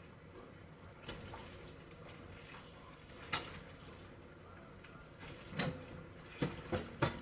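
Kitchen clatter: sharp knocks and clicks of utensils or cupboards, a couple spaced out and then four in quick succession near the end.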